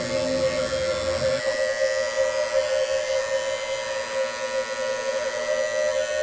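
Steady buzzing drone held on one pitch, the sustained tone of a meditation soundscape. A lower hum beneath it drops out about a second and a half in.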